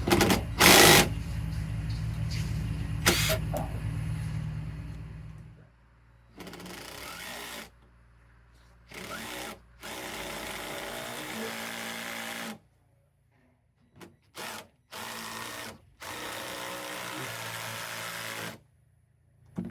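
Cordless drill driving fasteners into hard material in several short runs of one to three seconds, each starting and stopping suddenly. Before that there is a steady low rumble with a few loud knocks.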